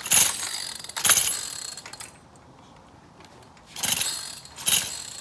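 Recoil pull-starter of a two-stroke chainsaw engine yanked four times in two pairs, each pull a short rasping whirr; the engine does not catch.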